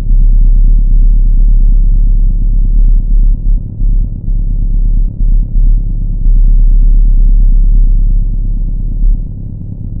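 A loud, deep rumbling drone with nothing high in it, swelling and dipping unevenly, with a brief softer stretch near the end.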